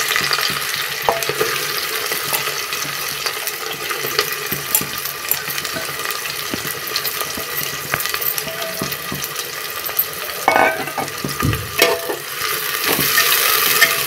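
Sliced onions sizzling as they fry in hot refined oil in an aluminium pressure cooker, with scattered pops and crackles. Near the end a ladle stirs them, knocking and scraping against the pot.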